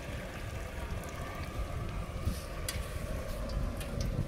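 Wind rumbling on the microphone outdoors, steady and low, with a couple of faint clicks a little over two seconds in.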